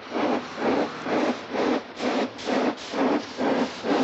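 Steam locomotive chuffing steadily, about two and a half exhaust beats a second.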